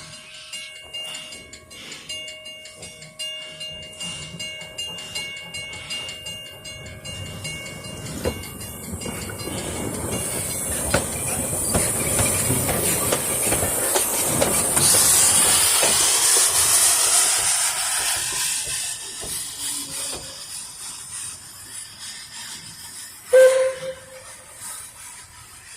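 Level crossing bells ringing rapidly, then the Puffing Billy narrow-gauge steam train passing: steam hiss and wheels on the rails build up, peak and fade away. Near the end there is one short, sharp, loud pitched blast.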